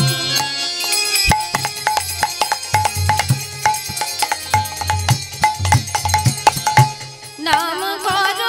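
Kirtan instrumental interlude: a hand drum and small brass hand cymbals beat a quick rhythm after a sung line ends. A woman's singing comes back in near the end.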